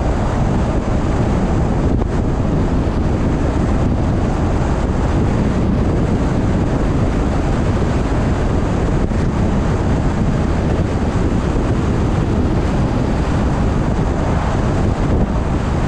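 Steady road and wind noise from a car being driven: a low rumble with a hiss over it, unchanging throughout.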